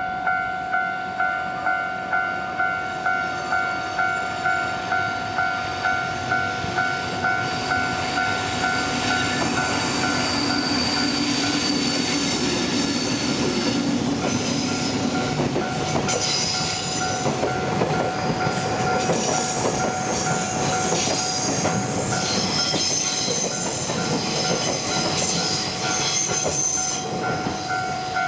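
Japanese level-crossing electronic warning bell ringing, just under two dings a second, then a freight train running over the crossing from about eight seconds in, its wheels squealing high for much of the passage while the bell keeps ringing.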